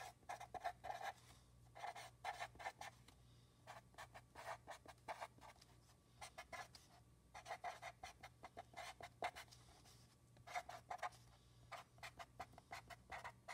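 Black felt-tip marker writing on a notebook page: faint runs of quick, short scratching strokes, separated by brief pauses between words.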